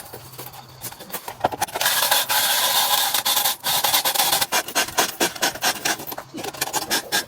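Rasping and scraping work on an old car. A continuous rasping noise runs for about two seconds, then gives way to a run of quick, irregular scraping strokes.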